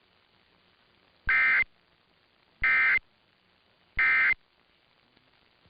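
Emergency Alert System end-of-message signal: three short bursts of SAME digital data, a buzzing two-tone warble, evenly spaced a little over a second apart, marking the end of the alert.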